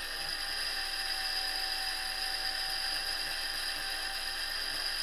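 Electric drill running at a steady high-pitched whine, spinning a model-car tire mounted on a knob against a clamped strip of buffing wheel to sand the tire flat.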